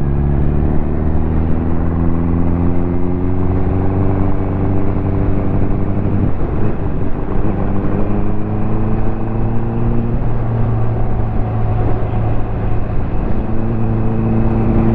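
Ducati motorcycle engine running under way, its note climbing slowly for about ten seconds. The upper part of the note fades briefly, then picks up again near the end.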